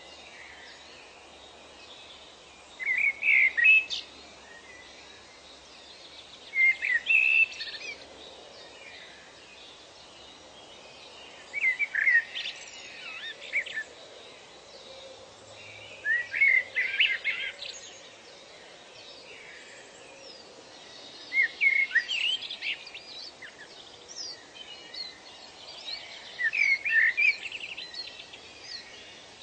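A songbird repeating a short, chirping song phrase six times, one about every four to five seconds, each lasting about a second. Fainter bird calls and a steady hiss of natural ambience fill the gaps.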